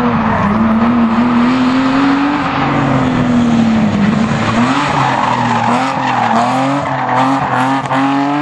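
BMW E30 3 Series rally car's engine revving hard, its pitch rising and falling as the driver accelerates and lifts through a tight slalom, with quicker rises and dips in the second half. Tyres skid on the concrete as the car slides through the turns.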